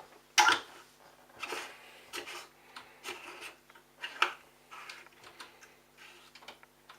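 Hard plastic parts being handled: a run of short knocks and scrapes, the loudest about half a second in, with about six in all.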